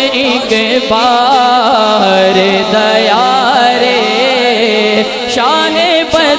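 A man singing a naat into a microphone, drawing out the words in long melismatic phrases with wavering ornaments. A steady low drone is held underneath.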